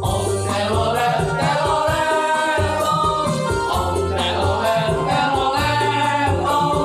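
A song: sung melody over instrumental backing with a repeating bass line.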